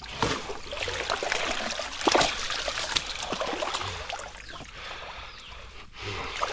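Shallow water splashing and trickling as a person wades and gropes through it by a gill net, with a louder cluster of splashes about two seconds in.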